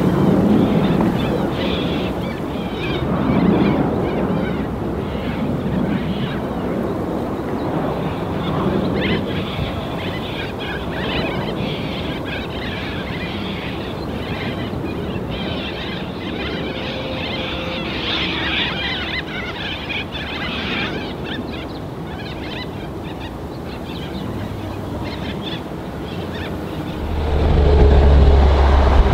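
Jet airliner engine noise outdoors: a steady rumble and hiss with wind on the microphone. A much louder low rumble swells up near the end.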